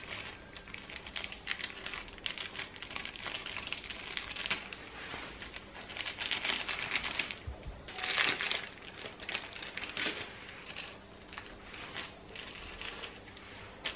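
A thin clear plastic packet crinkling and crackling in the hand as red chilli flakes are shaken out of it, in irregular bursts, loudest about eight seconds in.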